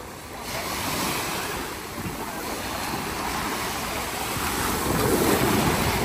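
Sea waves breaking and washing up the shore in a steady surf, swelling about half a second in and loudest near the end.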